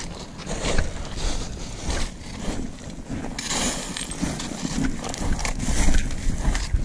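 Wind buffeting the microphone in a gusting, uneven rumble, with irregular rustling and knocking from movement.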